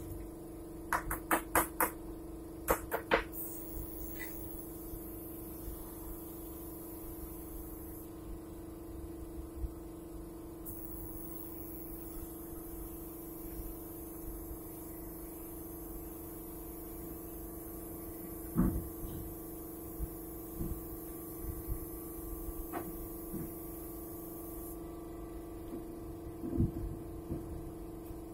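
Gravity-feed air spray gun hissing in long passes as it sprays paint onto a wooden wardrobe panel, pausing briefly about a third of the way in and stopping a few seconds before the end. A steady low hum runs underneath, with a few sharp knocks near the start and later on.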